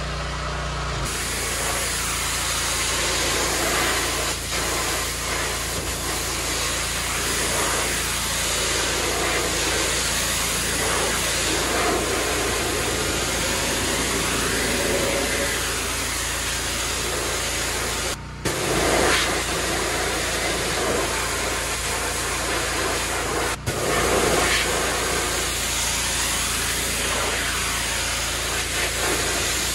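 Pressure washer running steadily, its wand blasting a jet of water onto wooden stair treads with a steady hiss over the machine's hum. The sound breaks off for an instant twice.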